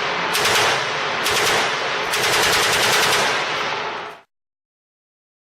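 Heckler & Koch UMP45 .45 ACP submachine gun firing full-auto in several long bursts that run into one another, stopping abruptly about four seconds in.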